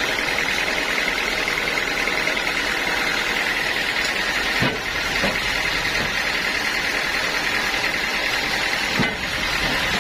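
Sawmill saw running steadily with a high, even whine, with a couple of brief knocks about halfway through and again near the end.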